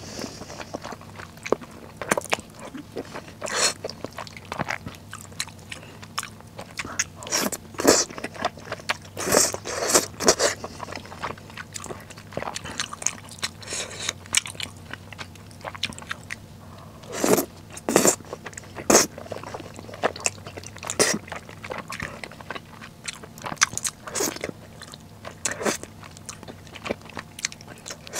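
A person eating spicy instant noodles and chewy rice cakes with melted cheese: irregular slurps of noodles and wet chewing, with a run of louder slurps a little past the middle.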